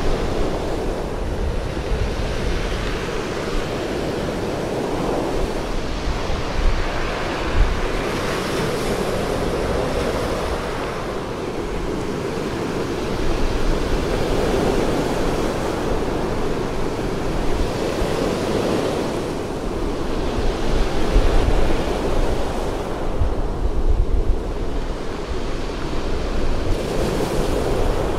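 Sea surf breaking and washing up a pebble beach, a steady rush that swells and eases every few seconds, with wind rumbling on the microphone now and then.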